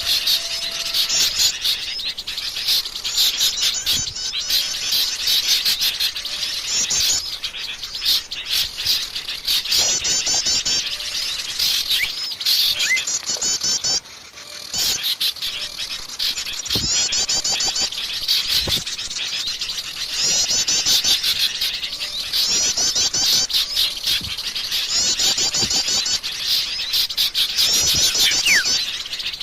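Wild forest birds singing: phrases of rapid, high, trilled notes, repeated every couple of seconds, with a brief break about halfway through.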